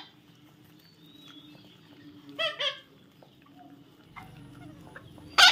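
A short animal call, two quick pitched notes, about two and a half seconds in, followed near the end by one sharp knock.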